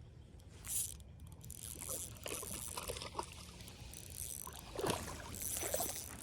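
Irregular water splashing and rustling from a hooked fish being pulled in and landed, starting about a second in.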